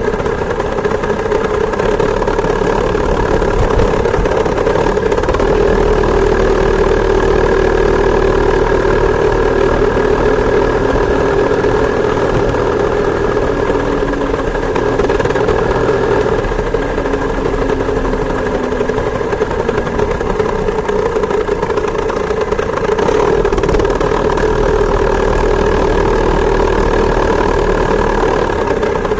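Small two-stroke chainsaw engine driving a homemade moped, running steadily with a high buzzing note that shifts a little in pitch now and then.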